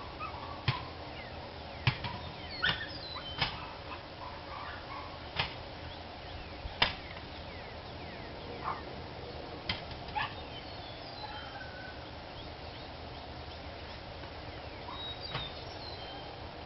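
A dog barking in single, sharp barks at uneven intervals, about ten in all, most of them in the first ten seconds, with small birds chirping in the background.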